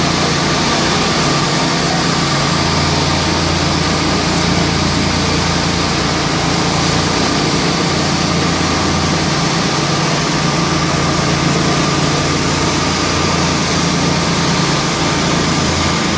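Engines of concrete-finishing machinery running steadily: ride-on and walk-behind power trowels working a fresh concrete slab, with a concrete mixer truck running. A steady low hum under an even hiss, unchanging throughout.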